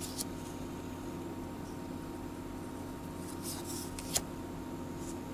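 1991 Fleer Ultra baseball cards sliding against each other as a card is pulled off the front of the stack and moved to the back: a short scrape at the start, then a longer scrape about three and a half seconds in that ends in a sharp click. A steady low hum runs underneath.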